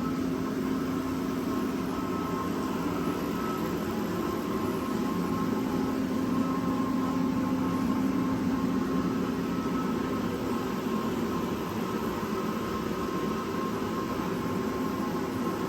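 A steady motor hum with a few faint whining tones, a little louder about halfway through.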